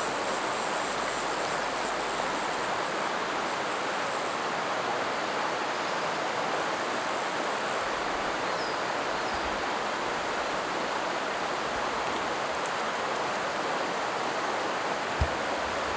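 Small spring creek's water running steadily over rocks, an even rushing sound, with a short knock near the end.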